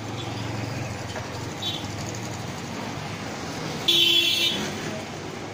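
Street traffic: a vehicle engine running close by, then a vehicle horn honking once, briefly, about four seconds in, the loudest sound.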